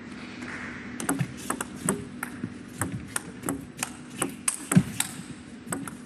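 A table tennis rally: the ball clicking off the bats and bouncing on the table, some eighteen sharp knocks at an uneven pace starting about a second in, the loudest near the end.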